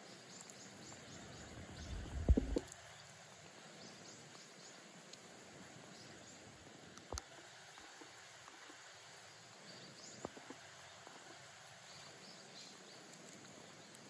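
Faint outdoor background with a few thin, high chirps, broken by a brief low rumbling bump about two seconds in and short sharp clicks about seven and ten seconds in.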